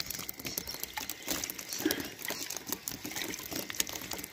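Irregular light slapping and pattering of freshly caught yellowtail scad flapping on wet wooden jetty boards.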